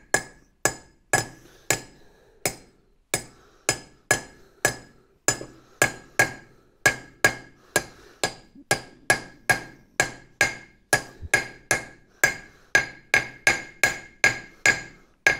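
Small hammer giving light, repeated taps to the outer race of a new rear wheel bearing, driving it into the brake drum's bore. Each tap is a sharp metallic strike with a brief ring, about two a second at first and quickening to about three a second.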